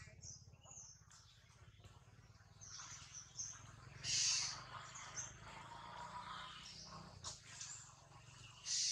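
High-pitched animal squeaks and chirps over a faint low hum, with two louder squeals about four seconds in and at the very end.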